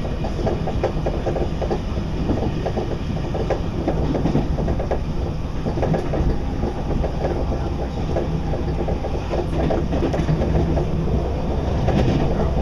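Paris RER commuter train running on the rails: a steady low rumble with continuous rapid rattling and clicking from the moving carriage.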